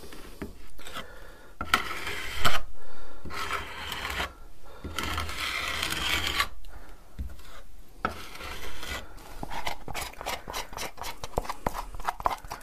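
Small spatula scraping and spreading creamy filler paste over a model road surface, in a series of strokes about a second long, then quicker short scrapes and taps near the end.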